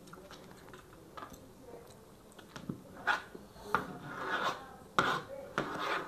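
Metal forks scraping and clicking against a serving tray while food is picked up. Quiet at first, with a run of clicks and scrapes from about halfway through.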